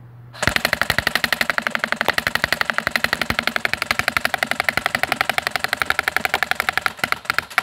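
Airsoft Honey Badger rifle firing one long full-auto burst: a fast, even stream of shots, well over ten a second, over a steady mechanical whirr, starting about half a second in and cutting off abruptly near the end. BBs strike the laptop's screen and casing.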